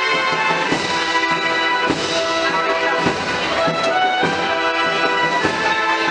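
Holy Week procession band of brass and drums playing a slow march, with sustained brass chords and a heavy drum stroke about every second and a bit.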